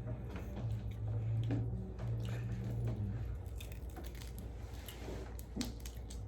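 Wet squishing and small cracks of snow crab legs and other seafood-boil food being handled and pulled apart in butter sauce.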